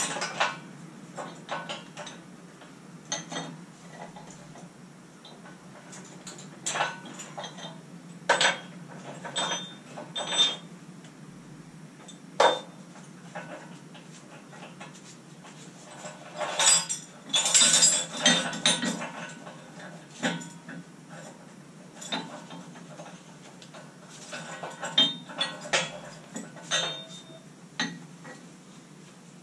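Scattered metal clinks and clanks of hardware being handled on a heavy metal lathe's headstock, coming irregularly, with the busiest clusters about two-thirds of the way through and again near the end.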